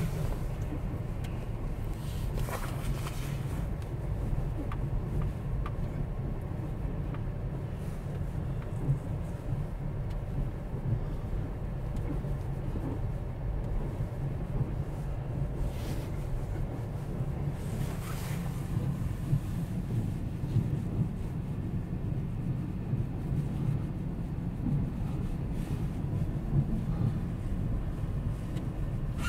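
Steady low rumble of a car's engine and tyres heard from inside the cabin while it moves slowly, with a few brief faint noises over it.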